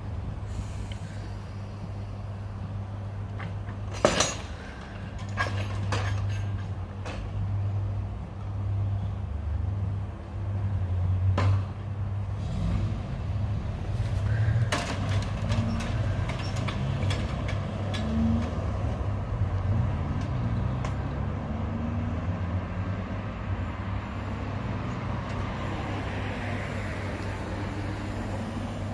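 Manually swung level crossing gates clanking and knocking as they are moved across the railway, with the loudest knock about four seconds in and several more over the following ten seconds. Underneath is the steady low hum of a Class 317 electric train moving away, and a road vehicle approaches near the end.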